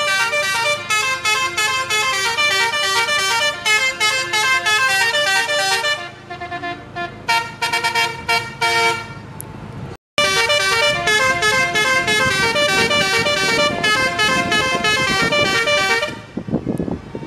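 Musical multi-tone 'telolet' air horn of a Tunggal Jaya coach playing a fast tune of short stepped notes. The horn is softer for a few seconds in the middle, breaks off abruptly and starts again, then stops near the end as engine and road noise come up.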